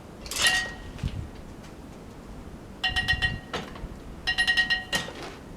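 Metal clanking and ringing from steel parts of a sawmill as a log is worked with a cant hook: a short clank about half a second in, then two bouts of rapid rattling with a ringing tone, about three and four and a half seconds in.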